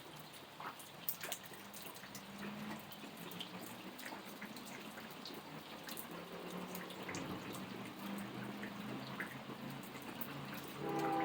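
Rain dripping: scattered drops tick sharply onto a surface over a steady hiss of falling rain. A low hum grows slowly underneath, and just before the end a louder sound of several steady tones comes in abruptly.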